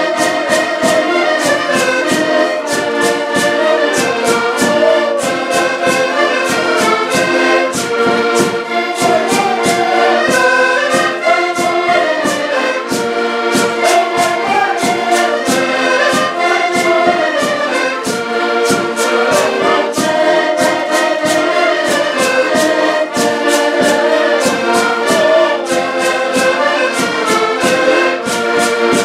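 Several diatonic button accordions playing a tune together, with a steady beat of sharp scraped or struck strokes from a long notched wooden scraper.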